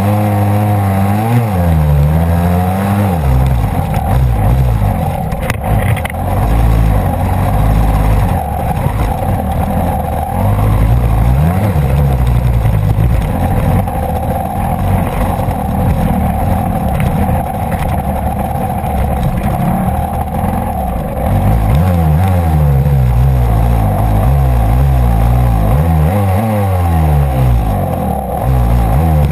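GasGas enduro motorcycle engine being ridden hard, heard from a camera mounted on the bike: the revs rise and fall repeatedly in the first few seconds and again near the end, and hold steadier in between.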